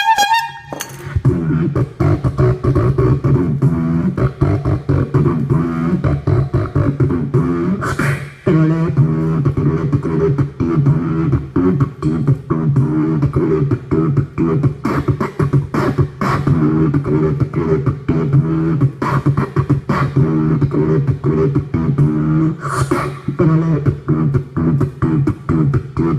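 Woman beatboxing: a steady hummed bass line under fast, sharp mouth-percussion clicks and snares. There is a brief break about eight seconds in.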